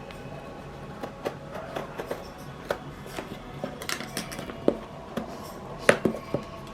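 A knife cutting open product packaging: a string of irregular clicks, scrapes and snaps, the loudest sharp snap about six seconds in.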